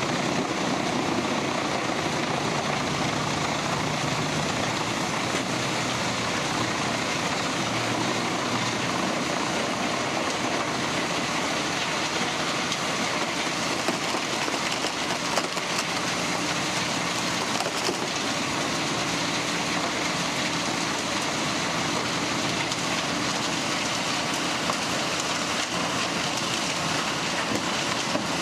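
Wood chipping machine running steadily, a dense continuous mechanical noise, with a few brief knocks in the second half.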